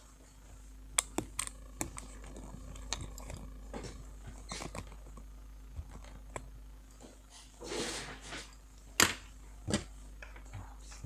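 Handling noise from a small laptop graphics-card module being picked up and worked on a desk: scattered sharp clicks and taps, a short rustle about eight seconds in, then two loud clicks close together. A faint steady hum runs underneath.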